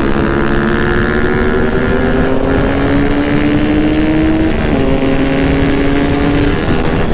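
Yamaha RX-King's two-stroke single-cylinder engine pulling hard under way, its pitch climbing steadily, then dropping at a gear change about four and a half seconds in and again near the end. Wind buffets the microphone.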